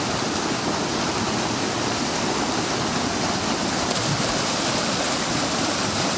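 River rapids rushing over rocks: a steady, unbroken roar of churning white water.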